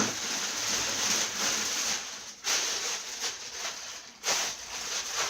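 Plastic packaging wrap crinkling and rustling as it is handled, in three stretches with sharp breaks about two and a half and four seconds in.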